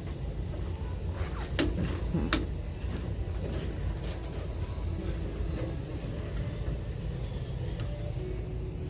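Steady low background rumble with two sharp clicks, about one and a half and two and a half seconds in.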